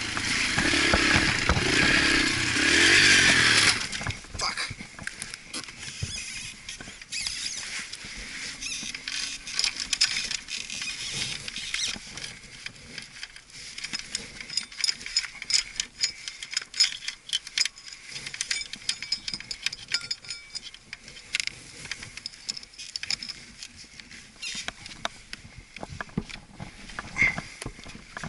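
Yamaha TTR125 trail bike engine running loudly, then cutting out suddenly about four seconds in. After that, scattered clicks, taps and scuffs in dry leaves and dirt as the rider moves around the stopped bike.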